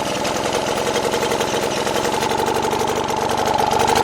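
British Seagull outboard motor's single-cylinder two-stroke engine running steadily with a rapid, even firing beat just after starting. Its owner calls the carburation poor and the engine a bit flooded.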